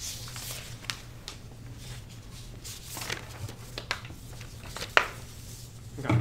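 Steady low room hum with scattered light clicks and handling noises, one sharp click about five seconds in. Just after six seconds, a knock as a plastic water bottle is set down on a table.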